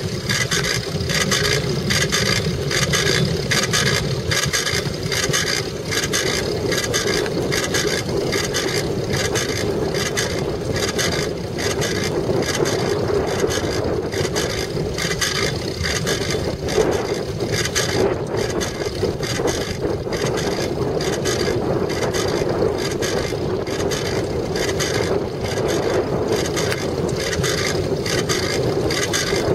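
A bicycle rolling over hard, dusty desert ground, heard from a camera mounted on the bike: a steady rolling noise with a fast, even rattle from the bike throughout.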